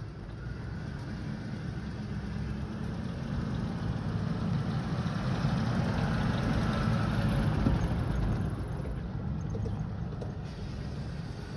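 Ford F-150 pickup's engine running as the truck circles on loose dirt, with tyre noise on the dirt. It grows louder as the truck swings closest, about seven seconds in, then fades as it pulls away.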